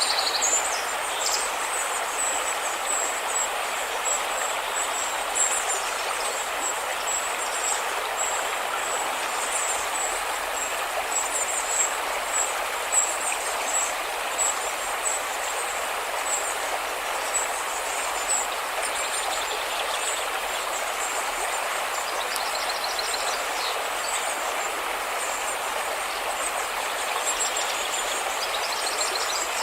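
A river's water rushing steadily, with high-pitched chirps sounding repeatedly above it.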